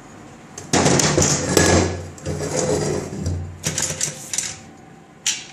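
Workshop tool work on metal: three bursts of mechanical rattling, each over a low hum, then a single sharp click near the end.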